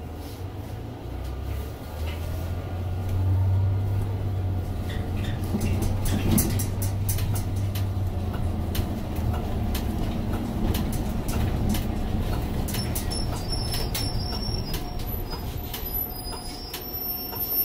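Cummins Westport ISL G natural-gas engine of a NABI 60-BRT articulated bus pulling away and accelerating, a low rumble loudest a few seconds in, then easing off as the bus slows for the stop. Scattered clicks and rattles come near the end.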